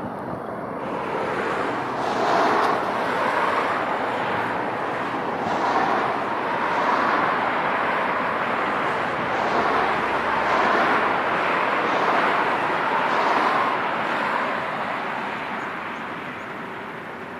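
Jet airliner engine noise. It swells after about two seconds, wavers in slow surges, and fades over the last few seconds.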